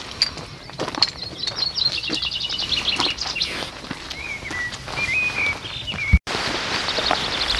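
Small songbird singing: a fast trill of high notes that steps down in pitch, followed by lower warbled notes. After a brief dropout about six seconds in, another high trill begins.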